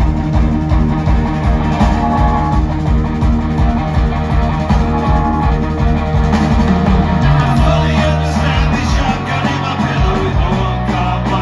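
Live rock band playing, with electric guitar over a steady drum beat.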